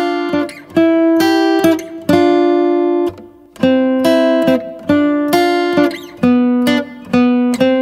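Acoustic guitar intro music: chords struck and left ringing one after another, with a short pause about three seconds in.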